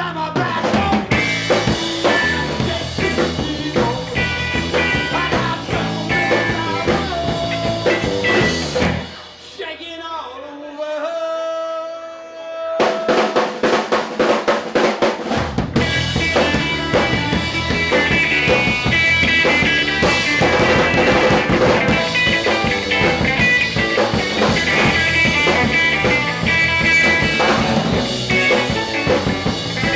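A rock band with drum kit and electric guitar playing a song. About nine seconds in, the drums drop out, leaving a few held guitar notes. A rapid drum fill a few seconds later brings the full band back in.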